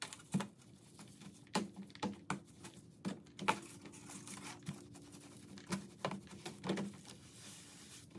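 Irregular clicks, taps and wet handling noises as a strip of paper drywall joint tape is pressed into and pulled out of a plastic tray of wood glue, over a steady low hum.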